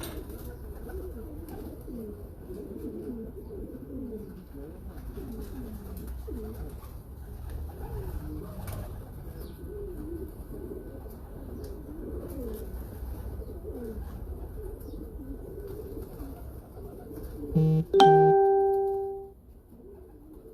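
Many pigeons cooing, their low calls overlapping throughout. Near the end, two quick knocks and then a loud ringing tone that fades out over about a second and a half.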